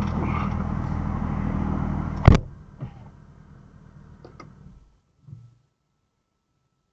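BMW M2 cabin with the car running steadily, then a single sharp, loud click about two seconds in; the running noise carries on more quietly and cuts off at about five seconds, followed by a soft thump.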